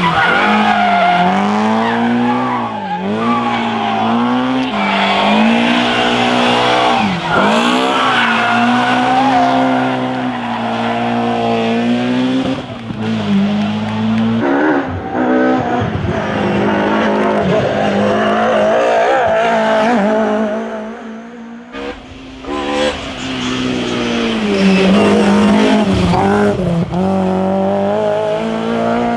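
BMW E30 M3 rally car's S14 four-cylinder engine run hard through a stage, its pitch climbing high and dropping sharply again and again with gear changes and lifts off the throttle. The sound dips briefly about two-thirds of the way through, then another pass picks up at full revs.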